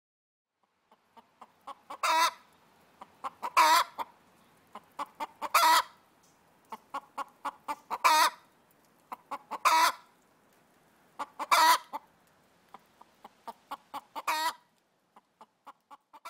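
Clucking bird calls, typical of a hen: runs of short soft clucks, each building to a louder drawn-out cackle, about seven times roughly two seconds apart.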